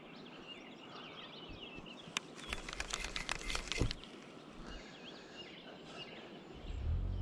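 Small birds chirping, broken by a rapid clatter of clicks and knocks for about a second and a half in the middle, with a low rumble coming in near the end.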